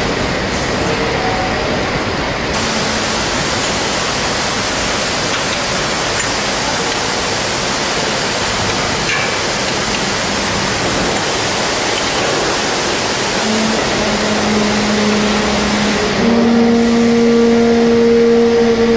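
Steady machinery noise on a CRT television production line, an even hiss-like din. A low steady hum comes in about two-thirds of the way through, and a louder hum with a higher tone above it joins near the end.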